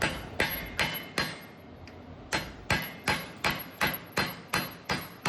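Hammer striking a punch set in the end of a front axle shaft, driving the axle back out of the wheel bearing hub. There are quick blows about two or three a second, each ringing briefly, with a pause of about a second after the first four.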